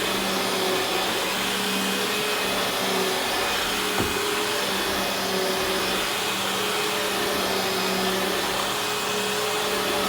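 Eureka Boss Victory upright vacuum cleaner running steadily while being pushed over carpet: an even rush of air with a steady motor hum, and one faint tick about four seconds in.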